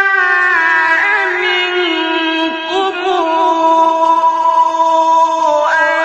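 A male Quran reciter's voice sustaining one long melodic, melismatic note without a break. The note steps down in pitch about half a second in and again about two seconds in, with small ornamental turns in between, then holds steady until a brief waver near the end.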